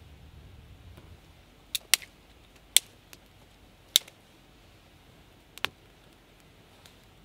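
About five sharp, irregularly spaced clicks or snaps over a faint low background.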